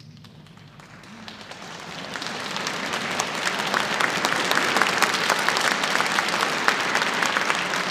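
Large concert-hall audience applauding at the end of a choral-orchestral performance, the last of the final chord's echo fading at the start. The clapping begins scattered about a second in and swells to full, dense applause within a couple of seconds.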